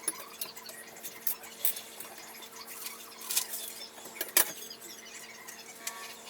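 Scattered light clicks and knocks of objects being handled, a few louder taps among them, over a faint steady hum.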